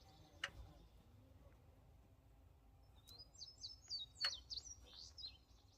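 A songbird singing a quick series of high, sliding chirps, starting about three seconds in and lasting about two seconds, over a quiet background. A faint click sounds near the start and a sharper click comes in the middle of the song.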